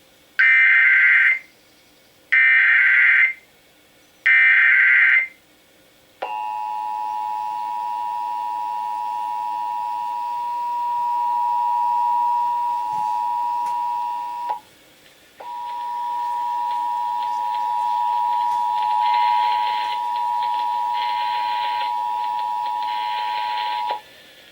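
Emergency Alert System test: three one-second bursts of SAME digital header data, then the EAS two-tone attention signal (853 and 960 Hz) held for about eight seconds. It breaks off briefly, then sounds again for about eight seconds more.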